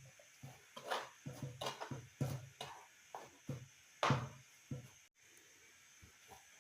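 A series of irregular dull knocks and thuds, one to three a second, with a pause of about a second and a half near the end.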